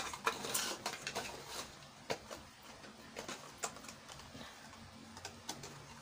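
Small plastic cups and snap-on lids being handled and pressed shut: irregular light clicks and crinkly plastic rustles, busiest in the first second or so.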